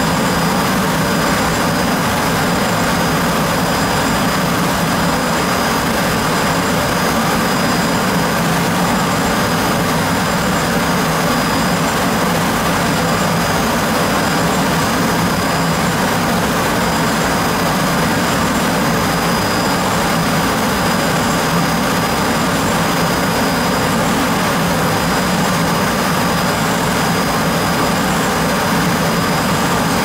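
Hwacheon Hi-M G1 vertical machining center finish-milling graphite with a 4 mm end mill, spindle at 12,000 rpm: a steady, even machining hiss with a thin high whine over it.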